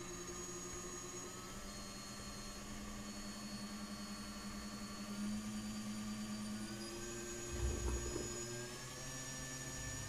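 Racerstar 2205 2300kv brushless drone motor spinning at low throttle on the bench, a steady whine that steps up slightly in pitch a couple of times, with a brief low rumble about three-quarters of the way through. After four months of use the owner finds these motors noisy and prone to vibration.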